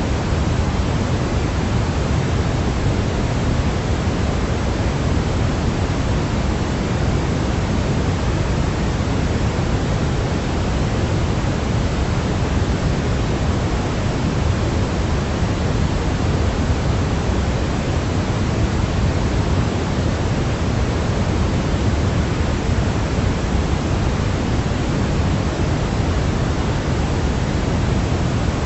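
Steady white noise for baby sleep: an even, unchanging rushing hiss, weighted toward the low end rather than bright.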